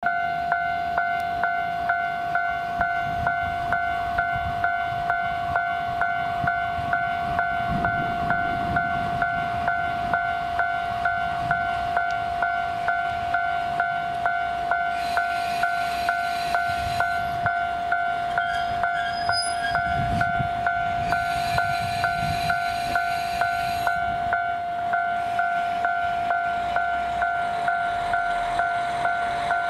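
Railway level-crossing warning bell ringing steadily, about two strikes a second, over the low rumble of a KiHa 40 diesel railcar as it approaches.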